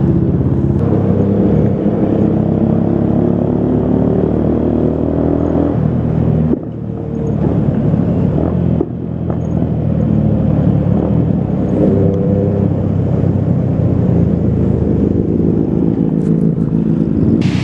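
Motorcycle engine running while riding at low speed, its pitch rising and falling with the throttle, with two sudden dips in level a few seconds in.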